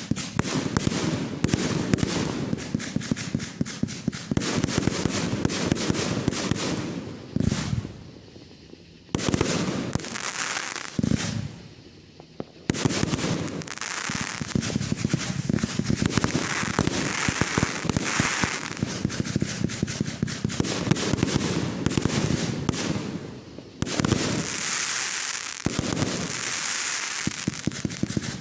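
Fireworks going off in a dense, rapid series of sharp cracks and pops, with two short lulls about a third of the way in and a fresh burst of crackling near the end.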